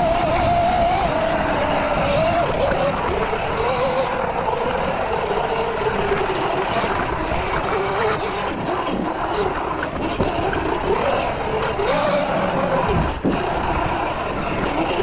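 Electric dirt bike's motor whine, rising and falling in pitch as the rider speeds up and slows down, over a steady rush of wind and tyre noise.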